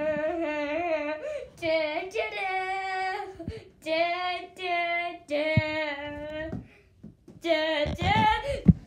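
A child singing a tune without accompaniment, in short phrases of long held notes with brief pauses between them. A couple of sharp knocks come through partway and near the end.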